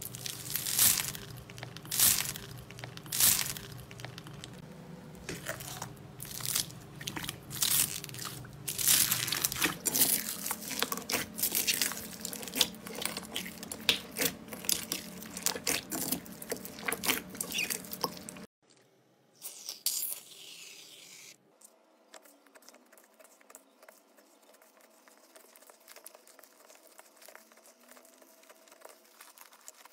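Hands pressing and squeezing slime packed with small foam beads, giving a dense run of sharp crunches and crackles. About two-thirds of the way through it drops to much quieter, faint crackly handling of plain slime being kneaded.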